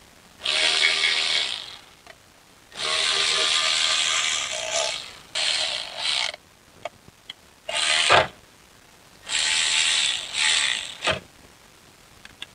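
Milwaukee M12 cordless ratchet driving bolts on a water pump housing, its motor and ratchet mechanism running in a series of short bursts of one to two seconds each with brief pauses between.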